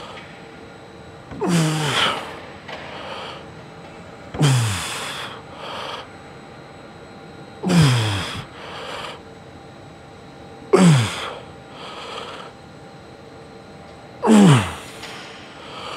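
A lifter's effort grunts through the reps of a heavy leg set: five loud grunts that fall in pitch, about every three seconds, each followed by a softer, quicker breath.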